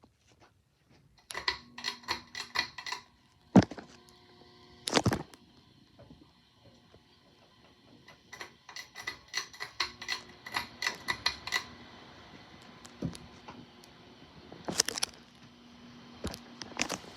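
Bladeless Hampton Bay Portland II ceiling fan: quick runs of rattling clicks and several sharp single clicks, typical of its pull chain and switch being worked, over a steady motor hum and hiss.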